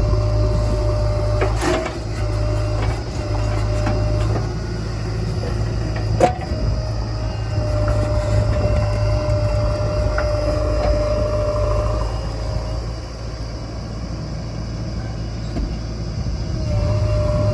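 JCB backhoe loader's diesel engine working under load while digging and loading mud, its note easing and rising again. Sharp knocks come about two and six seconds in.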